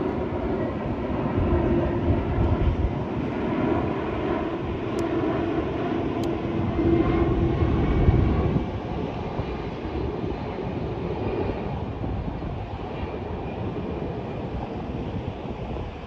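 A steady motor drone with wind rumble on the microphone. Its loudest part cuts off about eight and a half seconds in, and a fainter, slightly wavering tone carries on for a few seconds more.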